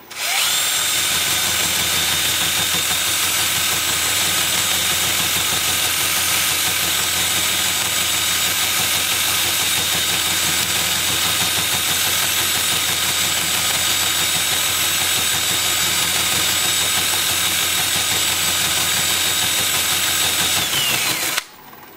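Power sanding: a cordless drill spins a Sand-O-Flex flap sander against red mallee burl as it turns on the lathe. The motor whine holds steady over a sanding hiss, rising as the tools spin up at the start and winding down about a second before the end.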